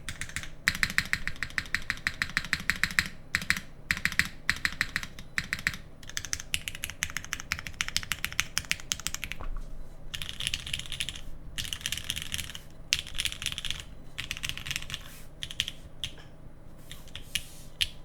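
Fast typing on a Singa Unikorn R1 mechanical keyboard with linear Cherry MX Black switches on an aluminium plate under GMK keycaps: rapid runs of keystroke clacks in bursts, broken by brief pauses.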